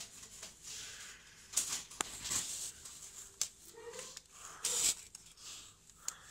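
Handling noise: rustling with a few sharp clicks as a hand touches a drone battery charging hub and its batteries and cables.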